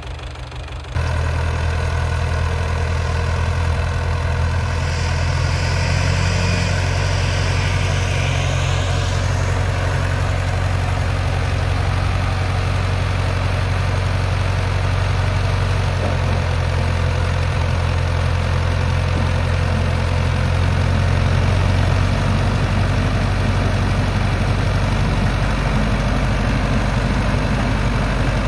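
Ursus C-385 tractor's four-cylinder diesel engine running steadily, with a hiss for a few seconds about five seconds in.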